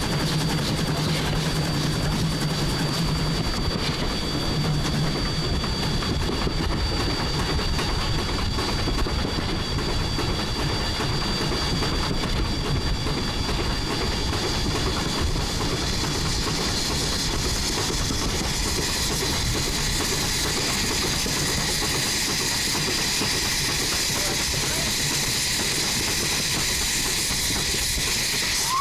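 Steam locomotive (1910 Swedish-built E2) running along the line: steady running noise and rail clatter, with a thin steady high whine. Steam hiss grows stronger in the second half as steam blows back over the boiler.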